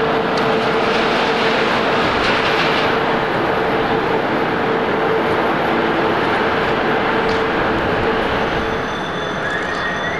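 Japan Airlines Airbus A350-1000 taxiing with its Rolls-Royce Trent XWB engines at idle: a steady jet roar with a held hum. Near the end the sound changes to a higher, rising engine whine.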